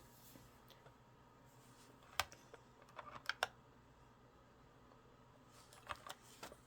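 A few light, sharp clicks and taps over quiet room tone: one about two seconds in, a quick cluster around three seconds, and a couple more near the end.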